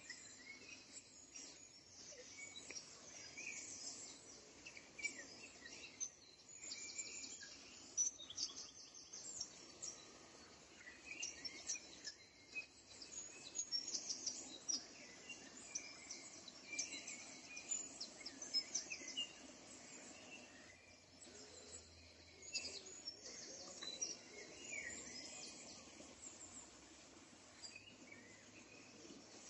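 Birds chirping outdoors: many short high calls, scattered and overlapping, over a faint steady background hiss.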